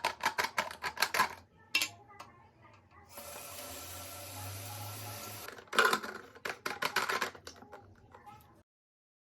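Small carpet and upholstery washing machine running for about two and a half seconds, a steady motor hum with a hiss, between bursts of quick clicking and tapping. The sound cuts off abruptly near the end.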